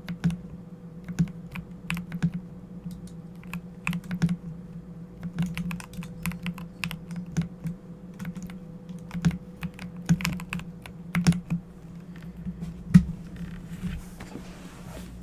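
Typing on a Corsair keyboard: irregular keystroke clicks, a few a second, over a steady low hum.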